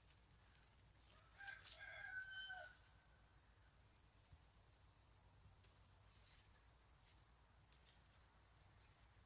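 A rooster crows once, faintly and from far off, about a second in. A thin high hiss runs underneath and swells for a few seconds in the middle.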